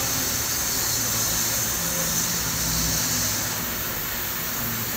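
Reverse osmosis water purifier running: a steady pump hum under a loud hiss of water through the flowmeter and valve. The hiss eases somewhat about three and a half seconds in.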